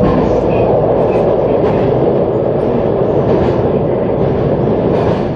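JR San'in Main Line local electric train running at speed, heard from inside the passenger car: a steady, loud rumble and rush of wheels on rail with a few faint clicks.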